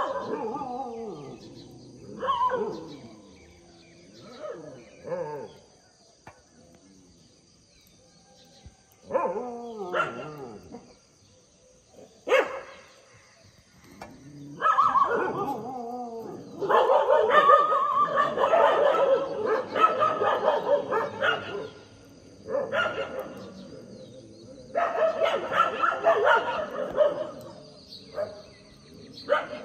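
Two groups of street dogs barking at each other while squaring off in a fight. The barking comes in irregular bouts, with the longest, densest stretch in the middle and another near the end.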